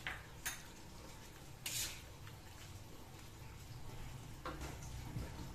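Perforated metal skimmer stirring vegetables in boiling water in a wok. It scrapes and clinks against the wok a few times, about half a second in, just under two seconds in and near the end, over a low steady rumble.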